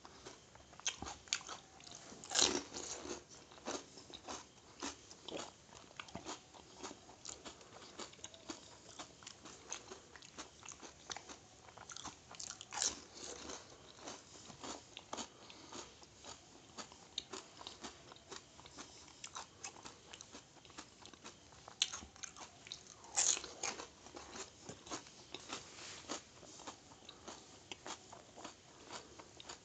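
Crisp pani puri shells crunching and being chewed, many small crackles throughout. The loudest crunches come about 2, 13 and 23 seconds in.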